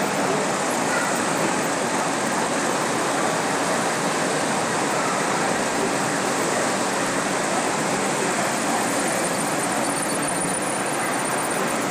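American model trains running on a large layout: a steady, even whirring noise of wheels and motors on the track.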